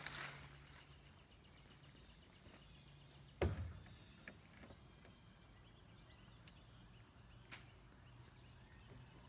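Quiet outdoor ambience over a faint steady low hum, with one sharp thump about three and a half seconds in and a lighter knock later. Near the end a bird gives a high, rapidly repeated trill lasting a couple of seconds.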